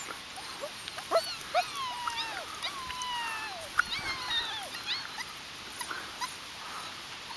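Five-week-old White Swiss Shepherd puppies whimpering and yipping: a string of high, mostly falling squeaky whines, several overlapping, thinning out after about five seconds.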